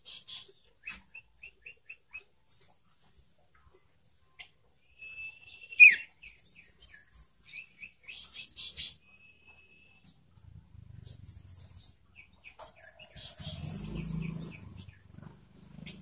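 Young common iora calling: a string of short chirps and whistled notes, with one loud sharp note about six seconds in. A low rumble comes in under the last few seconds.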